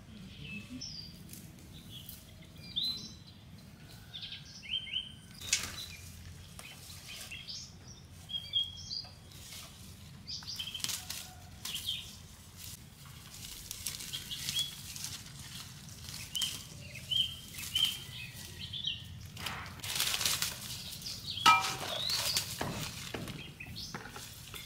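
Weeds and leafy plants rustling as they are pulled up by hand, in irregular bursts, with small birds chirping throughout.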